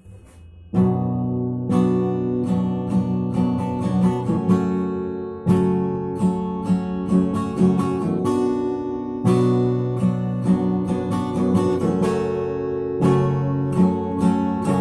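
Instrumental song intro: strummed and plucked guitar chords that come in fully about a second in.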